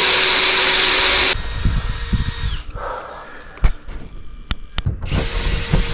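Power tool running at full speed, cut off about a second and a half in and winding down over the next second. A few sharp knocks follow, then the tool starts up again near the end.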